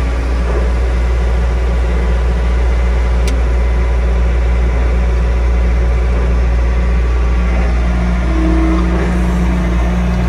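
Bobcat skid steer's diesel engine running steadily, heard from inside the cab, with a brief higher steady tone about eight seconds in.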